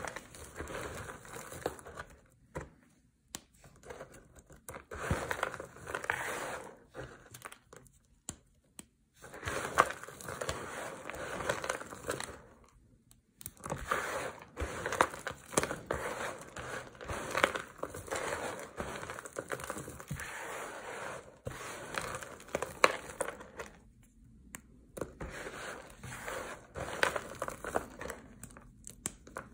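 A hand pressing into and stirring a pile of dry crushed bar-soap chunks and shavings, the pieces crunching under the fingers. The crunching comes in bursts a few seconds long, with short pauses between, four times.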